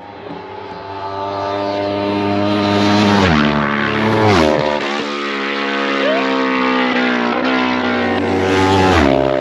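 Road-racing motorcycles passing close at full speed. Their engine note builds, then drops in pitch as each bike goes past, three times: a little after three seconds in, again about a second later, and near the end.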